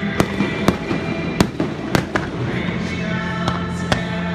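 Aerial fireworks shells bursting in an irregular series of sharp bangs, about eight in four seconds, over music playing steadily underneath.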